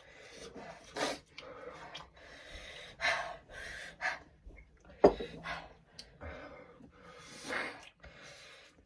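People gasping and breathing hard through the mouth in short, sharp breaths, the reaction to the burn of extra-spicy 2x ramen. A single sharp thump about five seconds in is the loudest sound.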